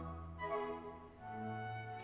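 Opera orchestra playing a soft, slow passage: violins and a flute over held low notes.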